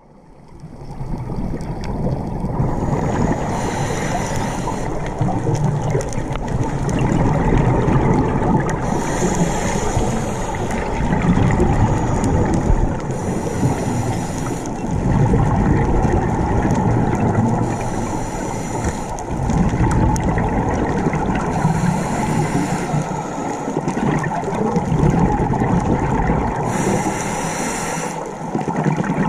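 Scuba diver breathing through a regulator underwater. A hissing inhale comes about every five to six seconds, with bubbling exhales in between. The sound fades in over the first second or two.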